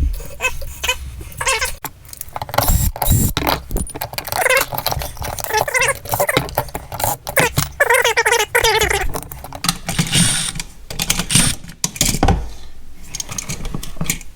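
Irregular small clicks and metallic rattling as a GFI outlet and its wires are handled, with one wire found loose.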